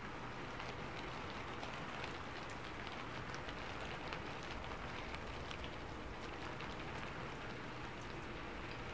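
Heavy rain, a steady hiss of falling water with many small drop ticks scattered through it.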